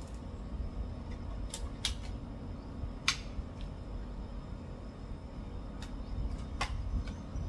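A few scattered sharp clicks and taps from an air rifle and its scope being handled on a shooting rest, over a low steady background rumble.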